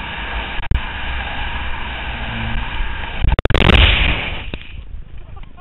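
Wind rushing over a helmet camera and skis running fast on snow, then about three and a half seconds in a sharp knock and a loud burst of noise as the skier crashes and the camera is driven into the snow; after it the sound drops away, muffled.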